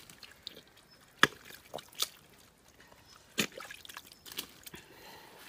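Hands digging and groping through thick wet mud in an eel burrow, giving soft squelches and a few sharp wet smacks spread through, the loudest just over a second in.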